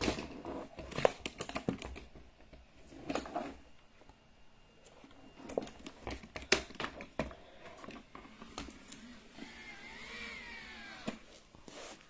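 Irregular clicks and knocks from a robot vacuum being handled, with no motor running. A short tone that glides up and back down is heard about ten seconds in.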